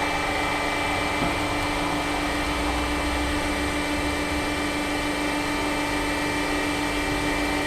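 Hydraulic press's pump motor running with a steady, unchanging hum and whine.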